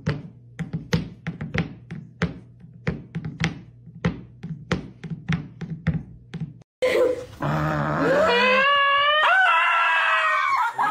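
A cat batting its empty food bowl, the bowl knocking and clattering on a wooden floor several times a second, a demand to be fed. About seven seconds in this cuts off and a dog howls, its pitch sliding up and down.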